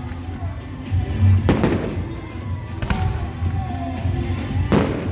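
Fireworks show: three sharp firework bangs, about a second and a half in, around three seconds, and near the end, over music playing throughout.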